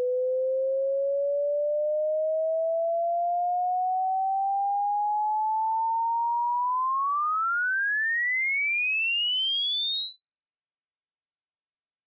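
Pure sine-wave test tone sweeping upward in pitch, left channel only, at an even level. It is a continuous sine sweep for checking speakers or headphones for buzzes and rattles. It climbs slowly from around 500 Hz to about 1 kHz, then rises faster after six or seven seconds to around 7 kHz.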